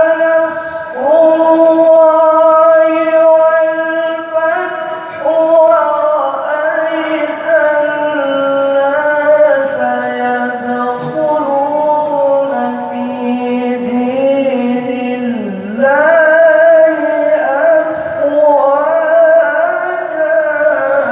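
A man's voice chanting Qur'an recitation in the melodic, ornamented style, holding long notes that waver and glide in pitch.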